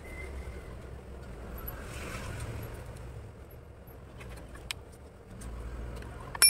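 Low steady background rumble with faint handling clicks of a freshly punched plastic ID card. A sharp click with a brief ring comes at the very end as the card is dropped onto the table.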